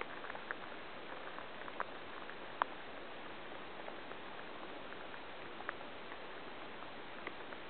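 Steady rush of flowing stream water with scattered light ticks, one sharper tick about two and a half seconds in.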